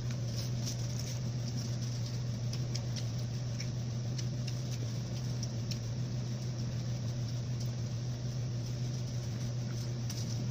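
A steady low machine hum, with faint scattered clicks and small taps from someone eating.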